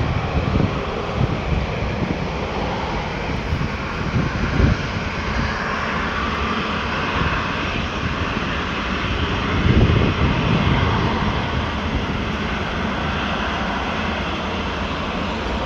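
Airliner engine noise near the runway: a steady, loud rush with a low rumble that swells briefly twice.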